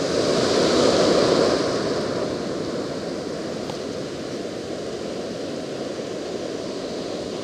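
Ocean surf washing in: the rush of a wave swells over the first second or two, then eases into a steady wash of foam.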